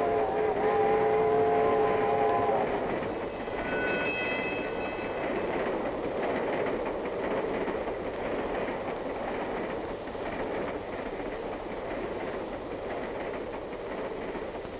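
A train whistle blows a steady chord of several notes for the first two and a half seconds. A fainter, higher whistle sounds briefly about four seconds in. After that comes the steady rumble of the train running on the rails.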